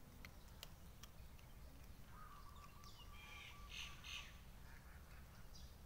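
Faint bird calls: one held note starting about two seconds in, then a brief, louder cluster of higher calls around four seconds, over a low steady rumble.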